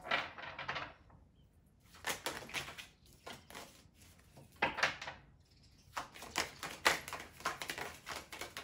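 Tarot deck being shuffled by hand: short runs of rapid flicking card clicks with brief pauses between them, the longest run near the end.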